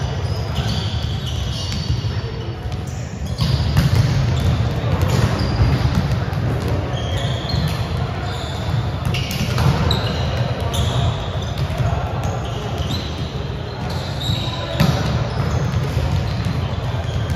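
Volleyballs being hit and bouncing on a gym floor, with repeated sharp smacks, short high squeaks of sneakers and players' voices echoing in the large hall.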